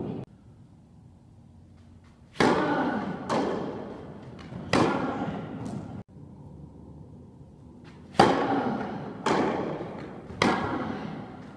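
Tennis ball struck by rackets and bouncing on an indoor court: six sharp hits about a second apart, in two groups of three, each ringing out in the hall's long echo.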